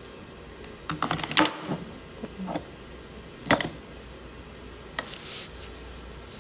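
Irregular clicks and knocks of hard objects being handled. A quick cluster comes about a second in, a few more follow around two and a half seconds, then a single sharp click at about three and a half seconds and a lighter one near five seconds.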